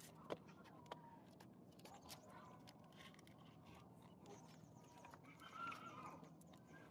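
Faint, scattered crunches from fried moong dal snack being chewed, over near silence, with a faint animal call about five and a half seconds in.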